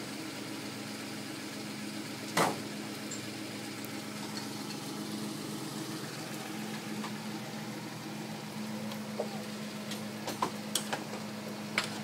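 Vehicle engine idling steadily, with one sharp loud knock about two and a half seconds in and a few lighter clicks near the end.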